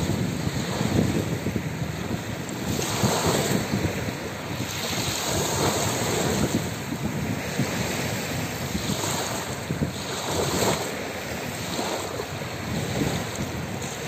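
Small sea waves lapping onto a shore of pebbles and shells and draining back, a steady wash that swells and eases every few seconds.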